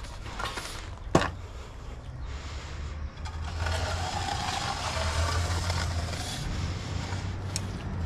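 Steel walking edger on a long pole scraping along the edge of the wet concrete slab, with a steady low engine hum underneath and a single sharp knock about a second in.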